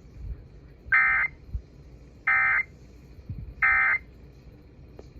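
Emergency Alert System end-of-message code: three short bursts of SAME digital data tones, about 1.3 s apart. They mark the end of the broadcast warning.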